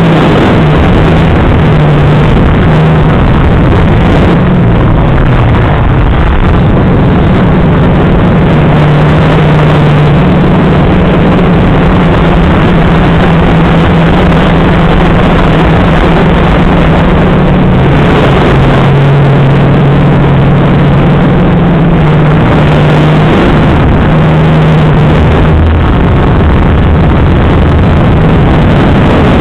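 FPV drone's motors and propellers running under a loud rushing hiss, their low hum stepping up and down in pitch as the throttle changes.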